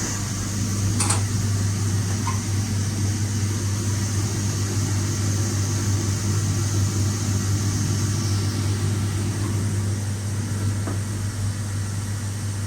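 A steady low mechanical hum with a faint hiss above it, unchanging throughout, and a single short click about a second in.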